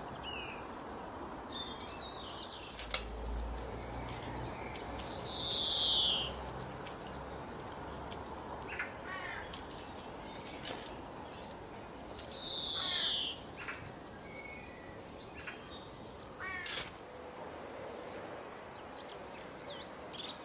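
Several wild birds calling and chirping over a steady background hiss, with two loud, harsh calls that sweep downward in pitch, about seven seconds apart.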